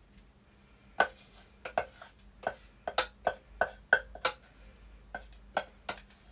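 Kitchen utensils clinking against plates and a pan while food is served: about fifteen sharp, irregular clinks with a short ring, starting about a second in and stopping near the end.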